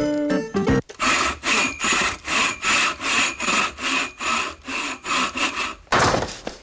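Regular back-and-forth sawing strokes, about three a second, starting about a second in and stopping near the end with one last louder stroke. A few notes of background music play before them.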